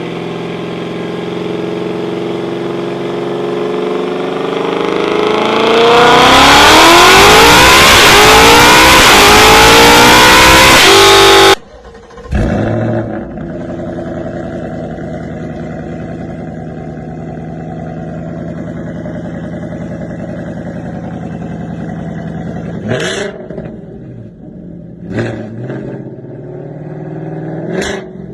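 A high-performance car engine run up at full throttle, its pitch climbing steadily for about seven seconds and very loud, then cutting off abruptly. It settles into lower, steadier running, with a few quick revs near the end.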